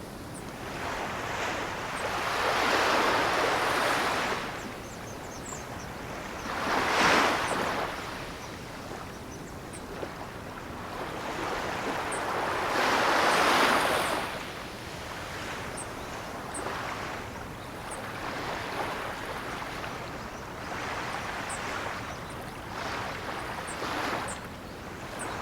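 Ocean waves surging in and washing out, rising and falling every few seconds; the biggest swells come about three, seven and thirteen seconds in, with smaller ones after.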